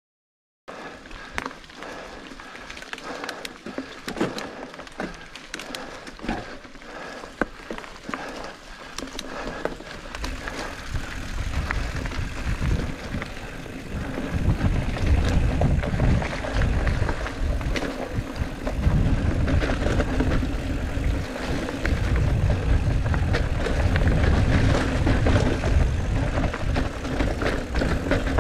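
Mountain bike riding down a dirt trail: tyre noise with the bike rattling and clicking over roots and rocks, starting suddenly after a brief silence. A low rumble grows louder from about ten seconds in as the ride speeds up.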